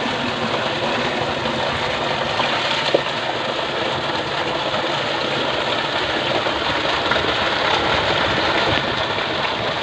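Water gushing steadily from a tubewell's outlet pipe into a concrete tank, a continuous rushing splash.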